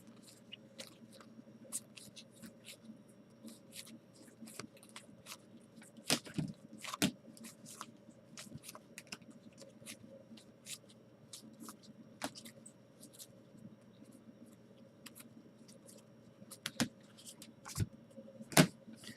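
Trading cards being handled and flipped through: a scattered run of small clicks, taps and scrapes, with a few sharper taps about six and seven seconds in and again near the end, over a faint steady hum.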